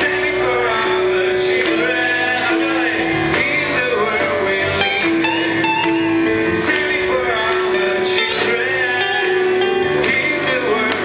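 Live choir of young voices singing with a band: strummed acoustic guitars, keyboard and a drum kit with cymbal hits.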